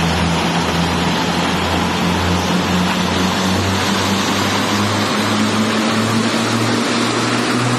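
Peanut thresher running at full work as peanut vines are forked into it: a loud, steady rumble and hiss of vines being beaten and stripped, over a low machine hum that pulses unevenly.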